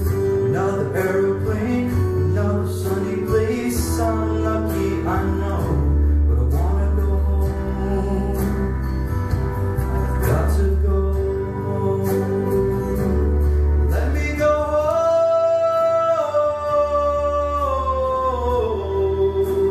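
A male singer sings a slow ballad into a handheld microphone over instrumental accompaniment with a steady bass. In the second half he holds one long note that steps down in pitch near the end.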